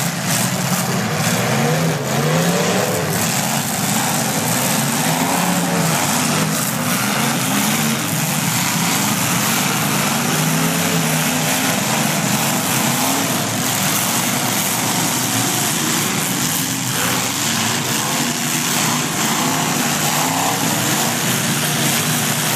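Several demolition derby cars' engines revving and running at once, their pitch rising and falling over one another again and again.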